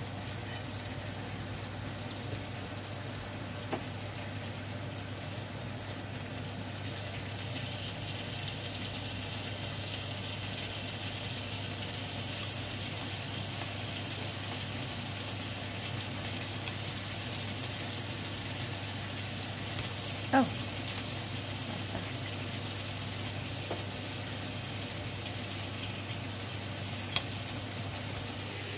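Chicken satay skewers basted with sweet soy sauce sizzling in a non-stick frying pan: a steady hiss that grows a little brighter about a quarter of the way in, over a steady low hum. A single knock about two-thirds of the way through.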